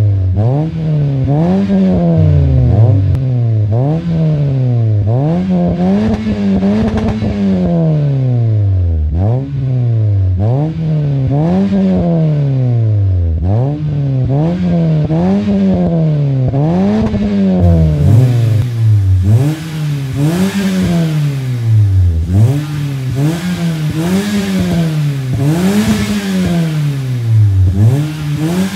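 Toyota Vios four-cylinder engine breathing through an aftermarket catback exhaust, revved again and again in Park: its pitch climbs and drops back, about one throttle blip every one and a half to two seconds.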